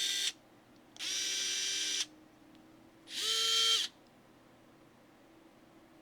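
Small cordless electric screwdrivers run briefly with no load, each giving a steady motor whine: one run stops just after the start, another lasts about a second, and a shorter, louder, higher-pitched run comes about three seconds in.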